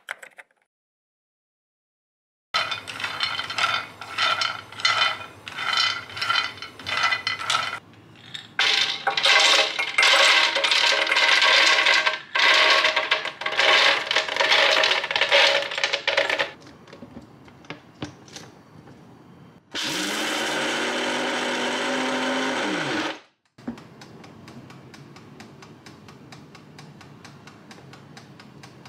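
Toasted almonds clattering into a plastic blender jar in a run of pours. Then the blender motor runs for about three seconds, grinding the almonds, and spins down.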